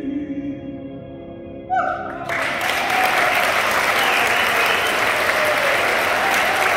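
The last held note of a sung ballad fades away, and about two seconds in the audience breaks into loud, steady applause.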